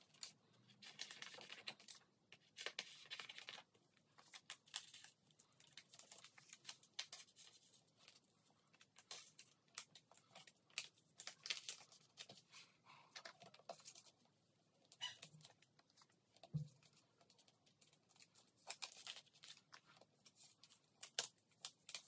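Clear plastic binder pocket pages crinkling and rustling as photocards and paper slips are slid into the sleeves and the pages are handled, in faint, short, irregular bursts.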